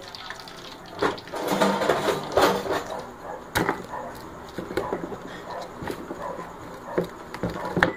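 Kitchen knife cutting up a whole fried chicken on a plastic cutting board: crunching and cracking through the skin and joints, with several sharp knocks of the blade on the board.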